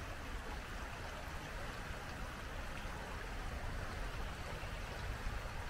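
Steady rushing of wind and tyre noise with a low rumble, heard while riding an electric scooter along a paved park trail.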